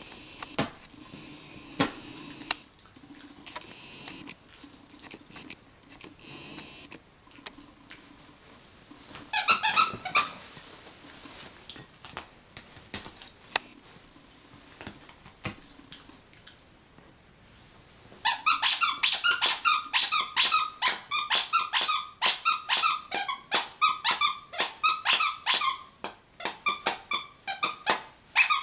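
Squeaker inside a plush dog toy squeaking as a Jack Russell terrier bites and chews it: a short cluster of squeaks about a third of the way in, then rapid repeated squeaks, about three or four a second, through the last third, with softer chewing sounds before.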